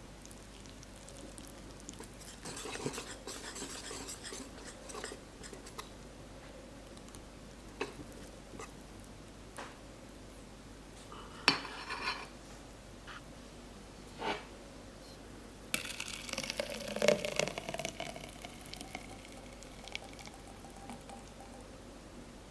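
Kitchen prep sounds from mixing batter: utensils stirring and clinking against a bowl, with scattered short knocks and a busier stretch of handling near the end.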